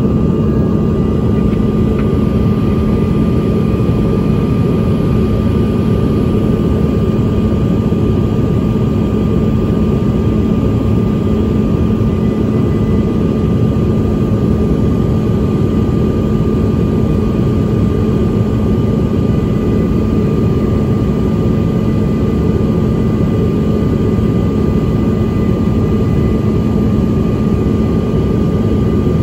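Steady in-flight cabin noise of a CRJ-900 regional jet: a constant rush of air and engine noise from its rear-mounted turbofans, with a steady low hum and a fainter higher whine over it.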